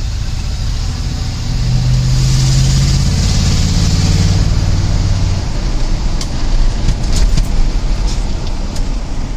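Cab-interior sound of a 1982 Ford F-150 4x4 pickup driving: a steady low engine and exhaust drone over road noise. The engine tone strengthens about a second and a half in and fades back about five seconds in, and a few sharp clicks or rattles come near the end.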